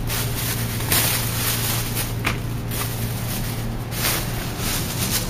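Footsteps and the handling rustle of a handheld camera being carried, with a few soft knocks, over a steady low hum.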